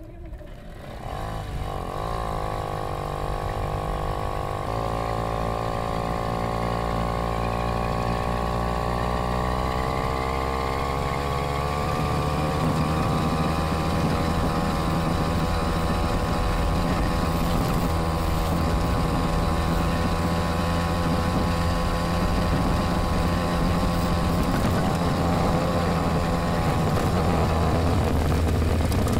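The 50cc two-stroke engine of an early-1970s Laverda moped running under way on its first test ride after restoration. Its note picks up about a second in, climbs in pitch over the first dozen seconds as the moped gathers speed, then holds steady, with a low rumble of wind and road underneath.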